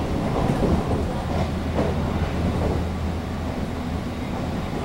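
Taiwan Railways EMU700 electric commuter train running, heard from inside the passenger car: a steady low hum under the rumble of the wheels on the track.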